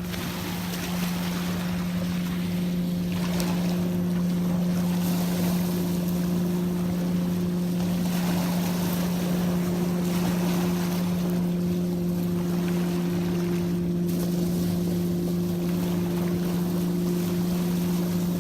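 A motor running with a steady low hum, mixed with wind and water noise.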